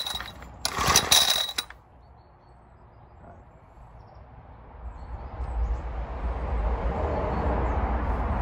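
Recoil pull-starter of a BSA 50cc stationary engine being yanked: the tail of one pull and then a second whirring, rattling pull about a second long, with the engine not catching. A low rumble builds from about five seconds in.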